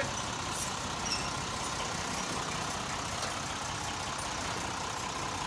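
Steady engine running noise with an even hiss at a constant level.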